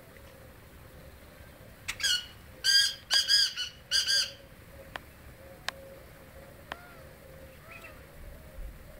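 Black francolin calling: one loud, harsh call of several grating notes in quick succession, starting about two seconds in and lasting about two seconds.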